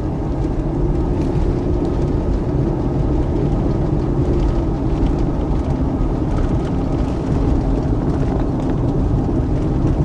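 Lincoln Aviator's 4.6-litre V8 running under light acceleration while driving: a steady low drone whose pitch drops a little about halfway through. The owner suspects an exhaust leak or an EGR fault behind its loud knocking and rough running.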